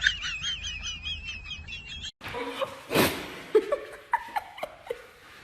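A bird chirping in a fast, warbling trill of about six chirps a second, which stops suddenly about two seconds in. A short loud burst of noise follows about a second later, then scattered short chirps and clicks.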